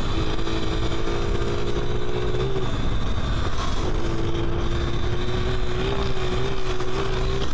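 Talaria R MX4 electric dirt bike motor whining at a nearly steady pitch under way, over a heavy low rumble. The whine drops out for about a second near the middle, then comes back with a slight waver.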